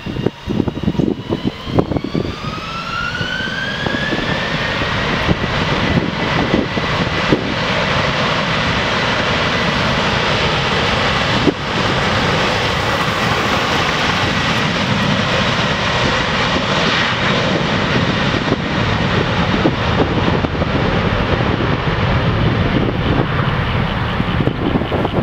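Jet airliner's engines spooling up to takeoff thrust: a whine rises over the first few seconds, then holds steady over a loud, continuous roar as the aircraft rolls and takes off.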